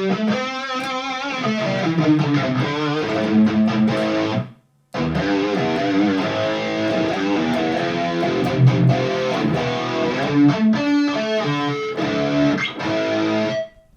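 Electric guitar played through a Valeton GP-200 modeler with a vibrato effect and a delay, heard in the room through two Headrush 108 active monitors. Chords and single notes have a wavering pitch; the playing stops briefly a little before the middle and ends just before the close.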